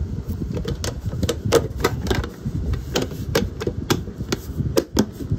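Rapid, irregular clicks and taps as fingers handle the sticky-topped lid of a diamond-painting storage box, over a low handling rumble.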